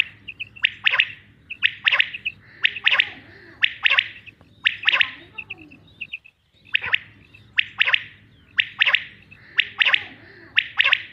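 Male common quail singing its sharp three-note call, the phrase repeated about once a second, each led in by faint short notes, with a brief break a little past the middle.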